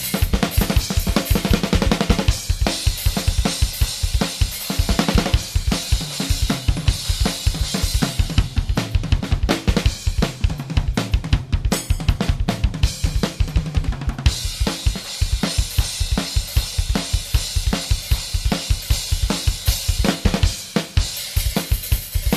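Funk drum kit playing a busy instrumental break: kick drum, snare and cymbals in a fast, steady rhythm.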